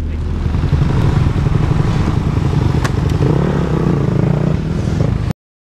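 Motocross bike engines revving hard, with a rising engine note in the second half. The sound cuts off abruptly about five seconds in.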